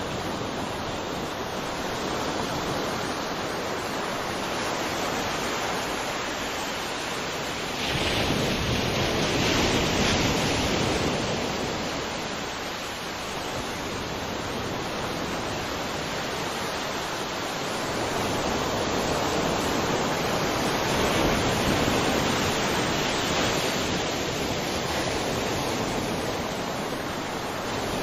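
Sea waves breaking on a shore, a continuous rush of surf that swells and ebbs every several seconds, with a stronger wave about eight seconds in.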